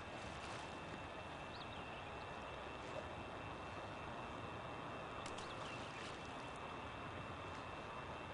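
Steady outdoor background hiss with no clear event, broken only by a few faint ticks and a brief high chirp about a second and a half in.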